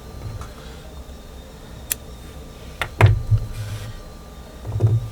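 A few sharp clicks and short soft bumps from handling the crochet work, the yarn and the tools.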